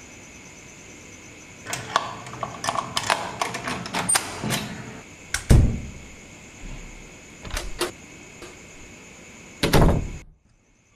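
A door latch and lock rattling and clicking as they are worked, with a heavy thud of the door about halfway through and another near the end. Crickets chirp steadily underneath, then cut off suddenly near the end.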